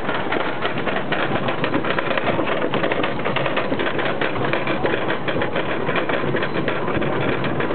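Wild Beast wooden roller coaster train climbing the lift hill: a steady, rapid clatter of clicks from the lift chain and the anti-rollback dogs ratcheting along the track.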